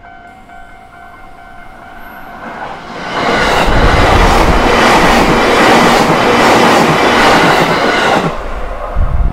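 JR Nanbu Line electric train passing over a level crossing: it swells in about three seconds in, its wheels clatter loudly over the rail joints for about five seconds, then it drops away, with a low thump near the end. Under it, the crossing's warning bell rings steadily.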